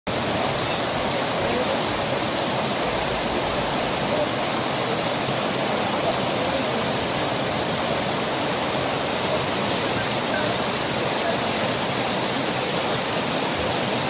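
Snowmelt-fed mountain waterfall rushing steadily: an unbroken hiss of falling water at an even level throughout.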